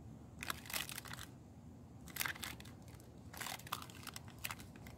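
Clear plastic shrink-wrap around a pair of turkey salt and pepper shakers crinkling as they are turned in the hands, in three short bouts.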